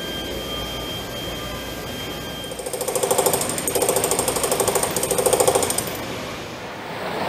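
Pneumatic hand tool rattling with very rapid impacts in three short bursts, over a steady hangar background with a faint high whine.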